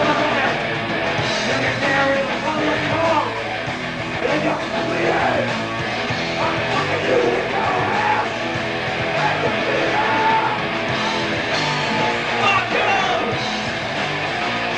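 Punk rock band playing live: electric guitar, bass and drums with a singer's vocals over them, in a low-fidelity camcorder recording.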